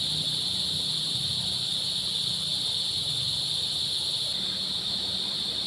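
Steady, unbroken chorus of insects droning at a high pitch, over a low steady rush.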